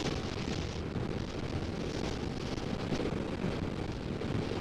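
Steady wind rush and road noise from a BMW R18 boxer-twin motorcycle cruising at highway speed.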